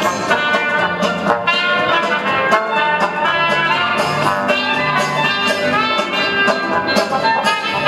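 Recorded dance music with a steady beat, played for a mixer folk dance.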